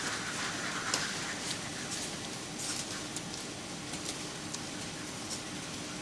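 Steady machinery hum of a duck-farm shed, with scattered small clicks and knocks.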